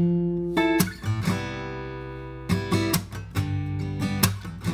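Steel-string acoustic guitar played alone, chords strummed and left ringing, one held for over a second before the strumming picks up again.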